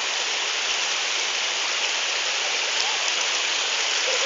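Waterfall and river water rushing, a steady even roar of falling and flowing water.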